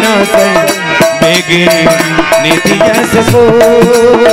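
Instrumental interlude: a harmonium plays a melody of held, reedy notes while a dholak keeps the beat with quick drum strokes.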